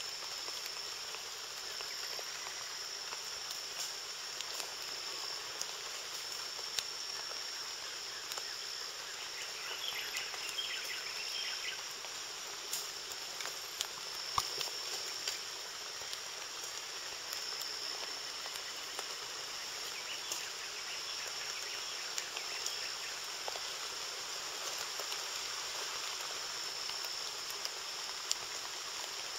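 Tropical rainforest ambience: a steady insect chorus with a high buzz that swells and fades every few seconds over a background hiss, and a few faint clicks.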